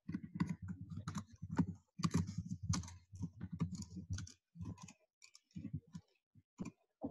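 Typing on a computer keyboard: a rapid run of key clicks that thins out to a few scattered keystrokes about five seconds in.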